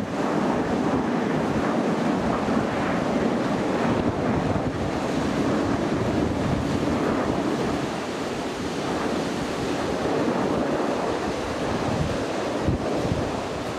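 Steady, distant jet roar from the Red Arrows' nine BAE Hawk T1 jets, each with a single Adour turbofan, flying past in formation, with wind buffeting the microphone.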